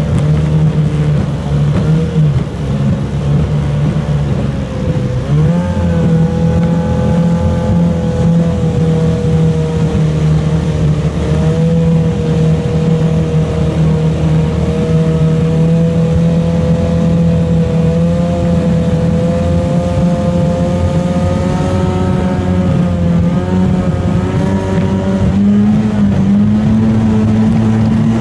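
Mercury Mark 28 two-stroke racing outboard running hard at high revs, pushing a small hydroplane at speed. The engine note sags a few seconds in, climbs back about five seconds in, holds steady, and rises a little more near the end.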